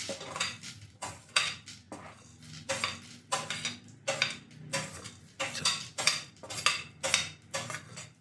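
A spoon scraping and knocking against a dish in short repeated strokes, about two a second, as whole spices are added and stirred into the onions.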